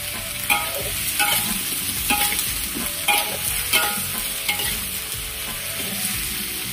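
Prawns and onions sizzling in oil in a hot metal wok while a metal spatula stirs them. The spatula scrapes and knocks against the wok about once a second, some strokes leaving a short metallic ring.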